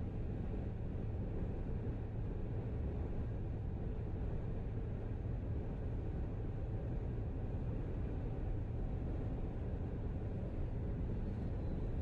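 Steady low road rumble of a car cruising at highway speed, heard from inside the cabin.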